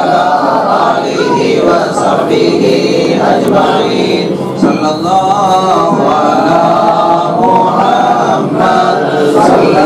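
A group of men chanting a devotional recitation together, many voices at once without instruments.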